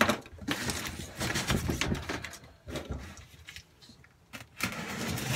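Cardboard box being opened by hand: packing tape pulled and cardboard flaps rustling and scraping in irregular bursts, with a brief lull about three and a half seconds in.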